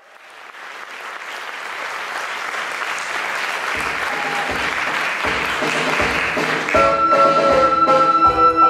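Theatre audience applause swelling in level, joined by musical accompaniment: a regular low beat starts about four seconds in and a melody enters near seven seconds.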